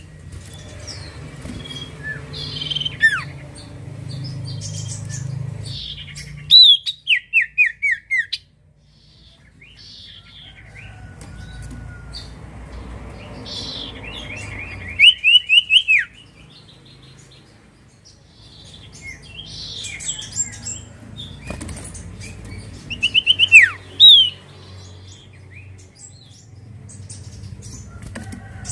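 Common iora calling: scattered high chirps and three loud runs of quick, falling whistled notes, over a low steady hum.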